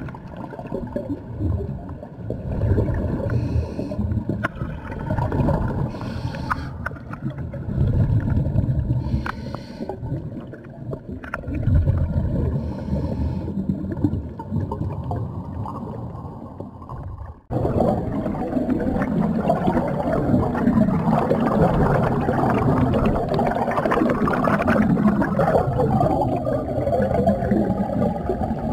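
Underwater bubbling and gurgling of a diver's exhaled air. It comes in rhythmic bursts every three seconds or so, with the pace of breathing. About two thirds of the way in it changes abruptly to a denser, steadier bubbling rush.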